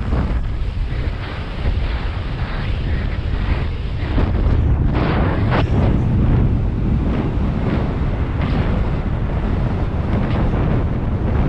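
Wind buffeting the microphone: a loud, steady rumble of wind noise with brief gusts.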